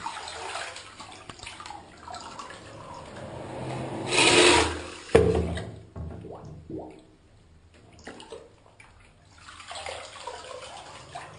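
Water sloshing and splashing in the container that holds a submerged electric fan heater, rising to a loud surge about four seconds in and a sharp splash about a second later, then quieting before stirring up again near the end.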